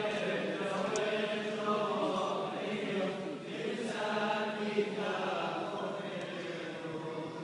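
A group of voices chanting a slow liturgical hymn together in a church, in two long sung phrases with a short break about three and a half seconds in.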